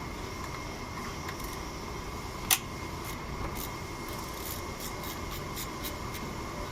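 Toyota Yaris engine idling with the rough idle it is being checked for, a steady running sound with a sharp click about two and a half seconds in and a few faint ticks after.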